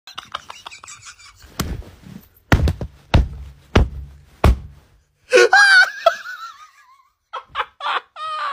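Rattling and clattering, then five heavy thuds about two-thirds of a second apart. A high-pitched voice follows, shrieking with laughter and falling in pitch, then breaking into short laughs near the end.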